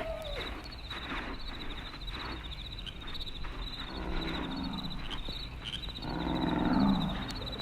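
Spooky sound-effects recording: a steady high chirping like crickets runs underneath, with two low growling calls, one about four seconds in and a louder one near the end. A falling eerie tone fades out just at the start.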